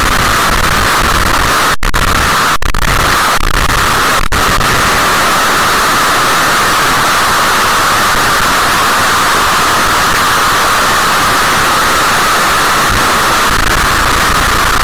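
Harsh digital noise music: a loud, steady wall of hissing static, brightest at a mid-high pitch, broken by a few split-second dropouts within the first five seconds.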